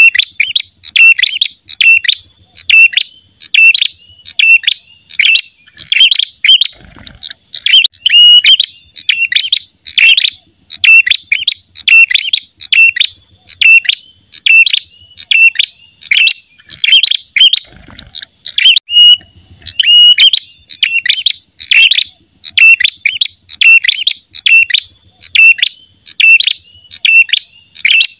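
Ashy tailorbird (prenjak kepala merah) giving its loud, sharp 'fighting' call: high chirping notes repeated about twice a second without a break, the aggressive territorial song used to lure and train birds.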